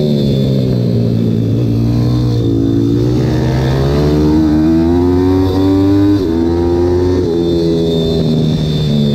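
Pit bike's single-cylinder engine from onboard: the engine note falls off as it slows into a turn, then climbs as it accelerates out, with sudden drops in pitch about six and seven seconds in.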